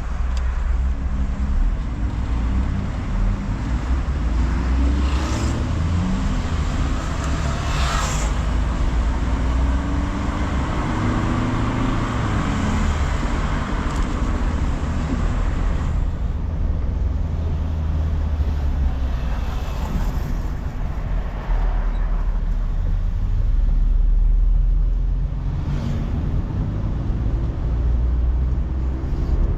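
Car engine and tyre/road noise heard from inside the cabin while driving through city streets. The engine note climbs in pitch several times as the car accelerates, with a few brief swells of noise along the way.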